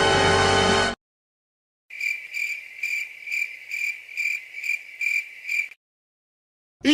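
Cricket chirping sound effect: a high, steady chirp pulsing about two to three times a second for nearly four seconds, the classic awkward-silence crickets. Before it, a music clip cuts off suddenly about a second in, and a new gliding sound effect begins right at the end.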